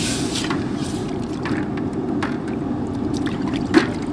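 Hot forged steel quenched in a bucket of water: a burst of hissing as it goes in, then bubbling and trickling, with a sharp knock near the end. A steady low rumble runs underneath.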